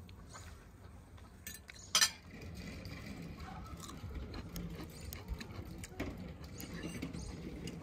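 A sharp clink of tableware about two seconds in, followed by faint small clicks and rustles of someone eating at a table.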